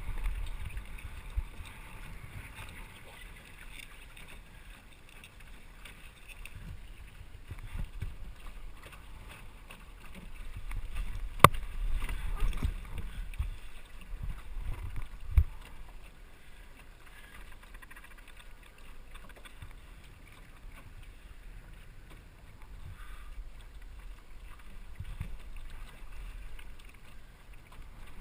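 Water sloshing along the hull of a small sailboat under way, with a gusty low rumble of wind on the microphone that swells from about eleven to fourteen seconds in. A single sharp click stands out about eleven seconds in, and a short knock follows a few seconds later.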